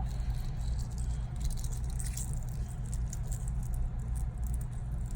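A hard-boiled egg's shell being cracked and peeled by hand: light, irregular crackling and scratching ticks over a steady low hum.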